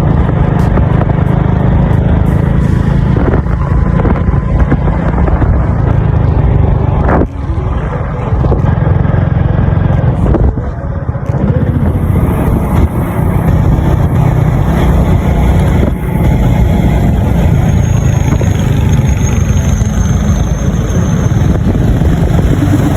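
Motorcycle on the move, a loud steady low rumble of engine and road noise, dipping briefly about seven seconds in and again around ten seconds in.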